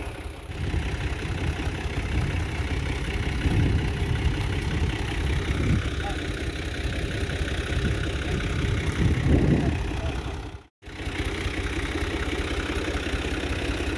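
Tractor's diesel engine idling steadily while hitched to a wheat thresher that has not yet been started, rising briefly twice. The sound cuts out for a moment about three-quarters of the way through.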